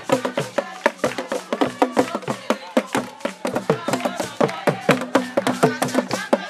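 Lively music driven by fast percussion, with several sharp strikes a second under bending pitched tones.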